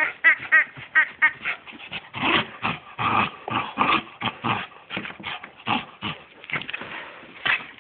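A West Highland white terrier whimpering in a few short, high whines in the first second or so, followed by a long run of irregular knocks and scuffles.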